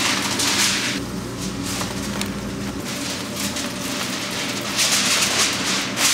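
Aluminium foil crinkling as gloved hands press and tuck it around racks of ribs, in two spells about a second long, one at the start and one near the end, over a low steady hum.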